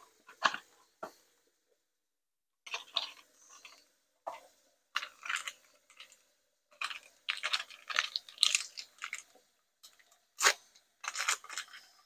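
Packaging being handled and torn open: a cardboard carton and then the wrapper of a coffee maker cleaner tablet crinkling and crackling in irregular bursts, with a sharp crack about ten seconds in.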